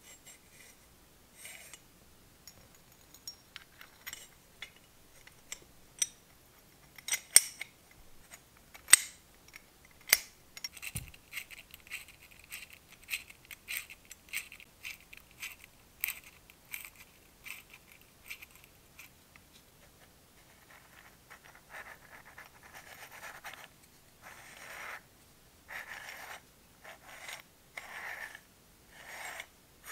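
Small metal parts of an all-metal model engine kit clicking and clinking as they are handled and as a hex key turns the tiny screws of the connecting-rod caps, with two sharper knocks about seven and nine seconds in. In the last third, a series of short metal scraping and rubbing strokes.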